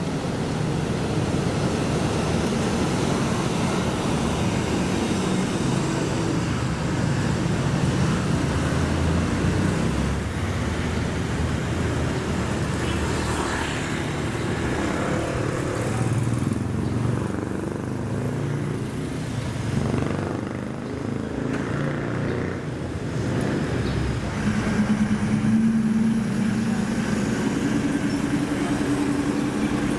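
Street traffic: motorbikes and cars running and passing, a continuous low engine hum with a steadier engine note in the last few seconds.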